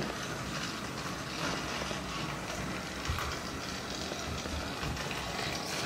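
Battery-powered Thomas & Friends TrackMaster Percy toy engine running along plastic track: a steady motor whir with light clicks from its wheels on the track.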